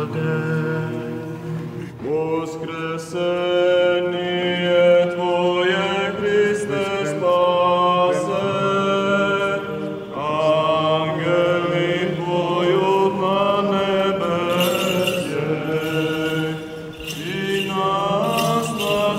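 Orthodox liturgical chant sung by a group of men's voices, the melody moving over a steady, held low drone note. A few short clicks sound near the end.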